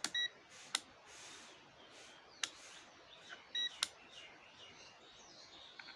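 Button presses on a UNI-T UT33B+ digital multimeter: four sharp clicks a second or more apart, two of them with the meter's short high beep.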